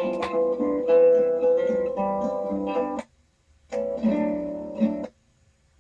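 Guitar music from a vinyl record, heard through a small FM radio's speaker receiving the turntable's built-in transmitter. It breaks off into near silence about three seconds in, returns briefly, then stops again about five seconds in.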